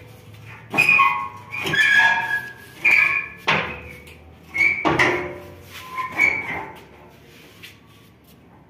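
Heavy steel parts clanking, about one hit a second, each hit ringing briefly, as the spiked steel drum of a Swaraj 8100 combine harvester is wrestled out by hand. The clanks stop about two-thirds of the way through.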